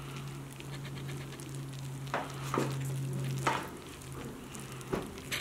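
Hands rolling minced meat and beef up in caul fat on a wooden board: a few short wet smacks and squelches over a light hiss, with a steady low hum underneath.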